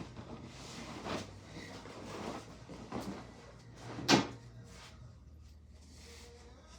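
Kitchen handling sounds: a few light knocks and clatters, then one sharper knock about four seconds in, over a faint low hum.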